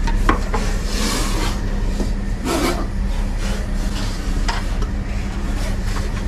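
Scraping and rubbing as a large cobra is dragged out of a wooden cage with metal snake tongs and lowered into a plastic bucket, with a few sharp knocks and short rasping bursts. A steady low hum runs underneath.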